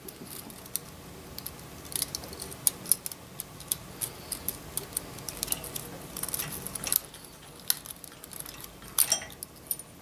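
Small metal carburetor parts clicking and clinking in the hands: the throttle slide, return spring and jet needle being worked off the end of the throttle cable, in irregular light clicks.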